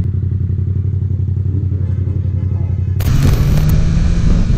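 Motorcycle engine running with a steady low drone. About three seconds in, the sound switches abruptly to a louder ride: engine note with wind and road noise from a sport motorcycle under way.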